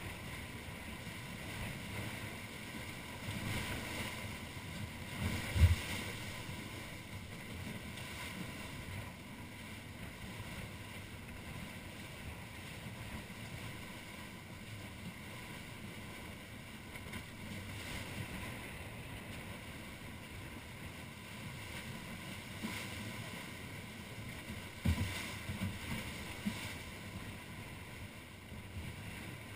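Wind and water rushing past a Wharram Tiki 38 catamaran sailing fast through choppy sea, a steady noise. A few short low thumps break through, the loudest about six seconds in and several more near the end.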